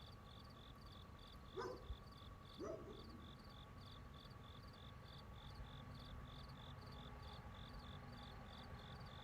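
Faint outdoor ambience: a cricket chirping in an even rhythm, about two and a half chirps a second, over a steady whirr. Two brief chirp-like calls stand out about one and a half and two and a half seconds in.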